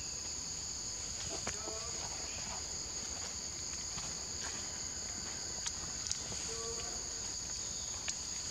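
Steady, high-pitched drone of insects in chorus, with a few faint short calls and a few sharp ticks on top.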